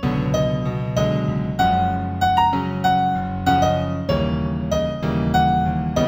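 New age piano music in F major: a gentle melody over flowing arpeggiated notes, struck a few times a second.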